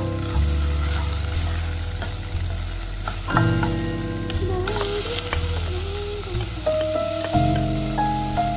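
Minced garlic sizzling in hot oil in a stainless steel pot, stirred with a wooden spoon; the sizzle swells briefly about halfway through. Background music with sustained notes plays underneath.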